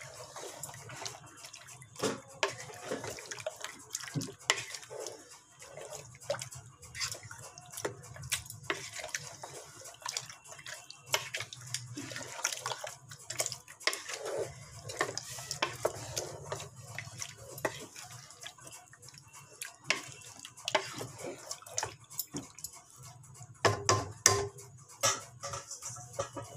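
A spoon stirring marinated chicken in a metal pot: repeated clinks and scrapes against the pot with wet sounds of the thick masala, and a burst of louder knocks near the end. A steady low hum runs underneath.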